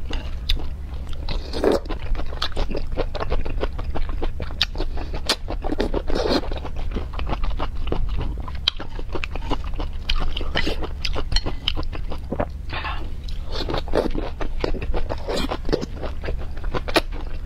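Close-miked chewing and crunching of green chili peppers dressed in chili oil, with many sharp crisp clicks and a louder wet bite every few seconds.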